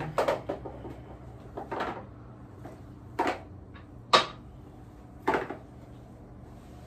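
Dishes and kitchen items being handled and set down: five separate sharp clatters about a second apart, the loudest a little past the middle.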